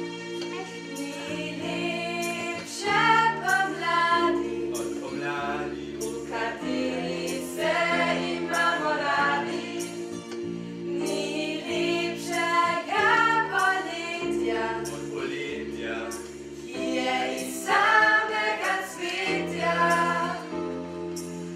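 A small group of voices singing a song together over an accompaniment of held chords that change every second or two.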